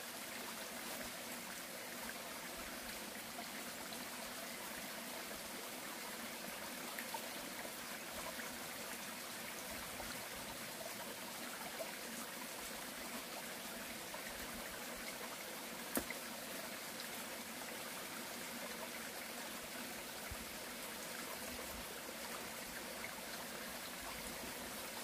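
Steady rush of flowing water, with one sharp click about sixteen seconds in.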